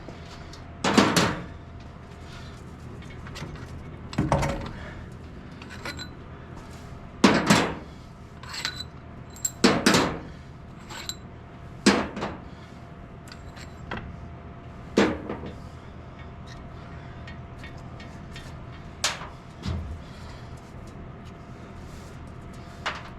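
Irregular sharp metallic clanks and knocks of hand tools and bolts, about ten in all, some briefly ringing, as the cylinder head bolts are taken out of a 1954 International R-110 engine.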